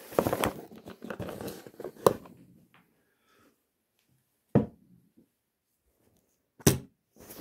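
A knife blade cutting and scraping through the packing tape and cardboard of a parcel box, with a sharp snap about two seconds in. Then near quiet, broken by two short knocks.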